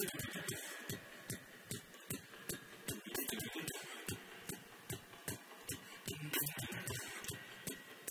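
Vocal percussion from an a cappella group's beatboxer: a steady beat of low kick thumps and sharp snare-like clicks, about two to three hits a second.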